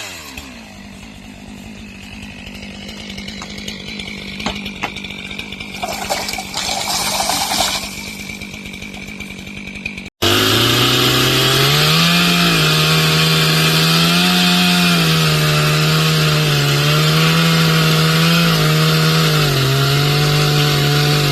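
Chainsaw throttled back to a low, steady idle, with a few sharp cracks and a brief rushing noise about six to eight seconds in. After an abrupt break about halfway through, the chainsaw runs loud at full throttle, its pitch dipping and rising as it cuts into wood.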